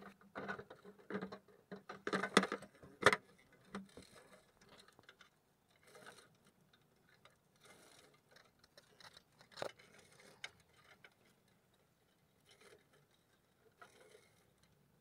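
Clear plastic compartment box being handled: a quick run of sharp plastic clicks, knocks and scrapes in the first few seconds, then a few scattered clicks.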